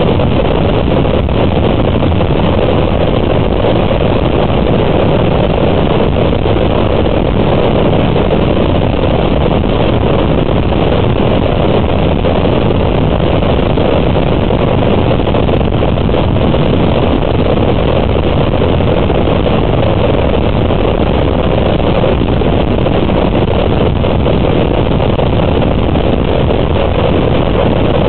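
Steady rush of wind on the microphone mixed with motorcycle engines at highway cruising speed, unbroken and level throughout.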